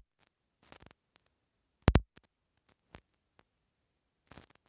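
A few faint, scattered clicks and taps, the sharpest a quick double click about two seconds in.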